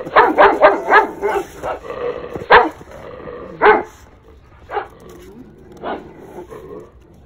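A dog barking: a quick run of about five barks at the start, then single barks about a second apart.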